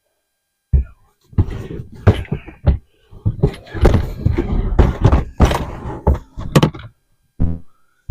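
Thuds and knocks of metal toolboxes being handled and shifted, a run of separate clunks with short gaps between them.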